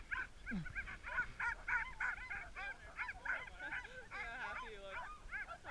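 A team of sled dogs whining and yelping, many short, high, overlapping calls one after another. The team is held stopped on the sled's brake.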